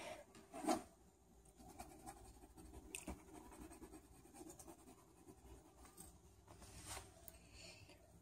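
Faint, scattered scratching and scrabbling of a cat's paws and claws on a wood-effect floor as it bats at a hair tie, with a few sharper scrapes about a second in, around three seconds and near seven seconds.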